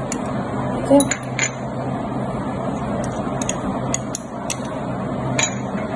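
Small ceramic dishes tapping and scraping against a glass bowl as seasonings are emptied into mayonnaise, a scatter of light clicks and clinks over a steady background hum.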